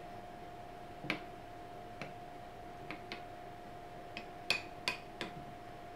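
A spoon clinking against a glass bowl as thick slime mix is stirred: about eight light, irregular taps, the loudest two near the end, over a steady faint hum.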